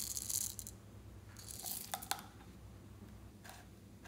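Small plastic beads pouring out with a rattling hiss that fades within the first second, then a few light plastic clicks and taps as the containers are handled.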